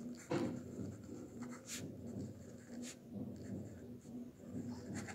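Pen writing on a ruled notebook page: a run of short, soft scratching strokes as a word is written, with a couple of sharper ticks.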